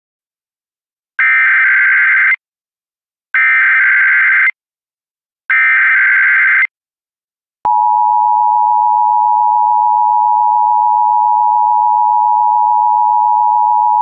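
Emergency Alert System header: three one-second bursts of warbling data tones (the SAME code) about a second apart. Then, about seven and a half seconds in, the long steady EAS attention tone starts, the signal that an alert message follows.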